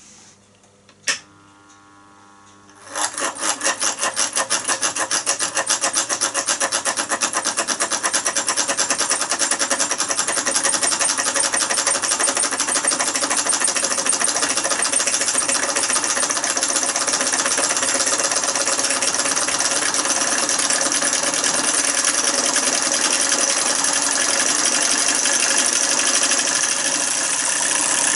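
A sharp click about a second in as the toggle switch is flipped, then about two seconds later the Empire B33 electromagnetic solenoid engine starts running: a fast, loud rhythmic clatter of the solenoid piston pulling and releasing, speeding up over the first few seconds and then running steady and noisy.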